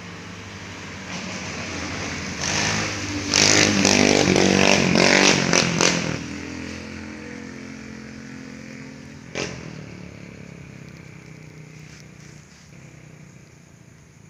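A motor vehicle's engine passing by, growing louder over the first few seconds, loudest a few seconds in, then fading away slowly. A single sharp knock about nine seconds in.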